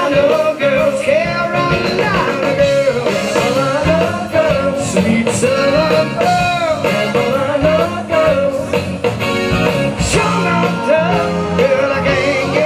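Live band playing a song, with a singer's voice carrying the melody over guitar and drums.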